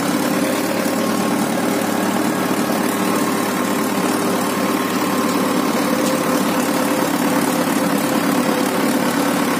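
Tractor's diesel engine running at a steady pace while driving, heard close up from the driver's seat: an even drone that holds its pitch throughout.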